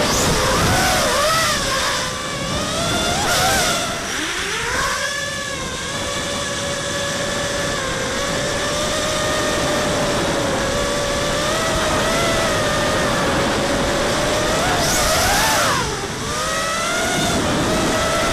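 FPV racing quadcopter's brushless motors and propellers whining, the pitch rising and falling with the throttle over rushing wind noise. The pitch dips and climbs about four seconds in, holds fairly steady for several seconds, then swings up and down sharply near the end.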